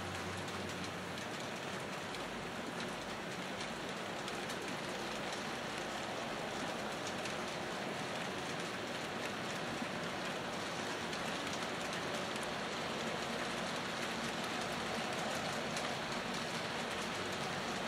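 HO scale model trains running on the layout: a steady rolling hiss and rattle of small wheels and motors on the track, full of fine clicking.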